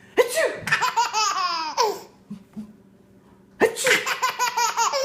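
A baby laughing at an adult's fake sneezes: a rapid run of high-pitched, pulsing giggles, a pause of about a second and a half, then a second burst of laughter about three and a half seconds in.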